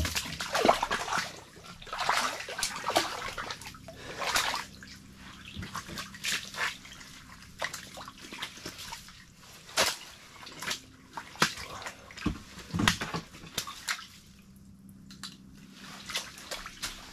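Irregular water splashes and drips with clicks and rustling as a freshly caught trout is handled and unhooked.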